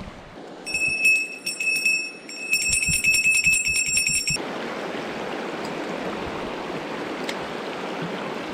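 A small metal bell jingling rapidly for about four seconds, then, after an abrupt change, a steady rush of mountain-stream water.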